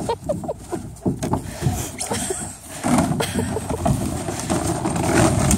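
Rigid plastic kiddie pool scraping, rustling and bumping over grass and dead leaves as a dog underneath pushes it along.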